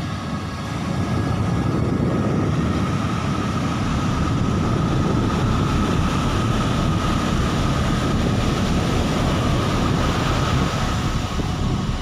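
Ocean surf breaking and washing up a sandy beach: a continuous, loud low rumble that swells about a second in, with wind buffeting the microphone.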